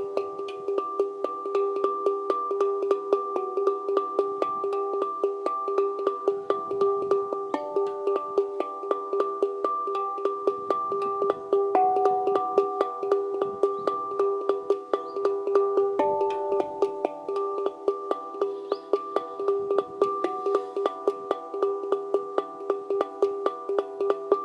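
Harmonic Art La Sirena handpan played with the fingers in a quick, steady run of taps. Its notes ring on and overlap, forming a sustained shimmering chord.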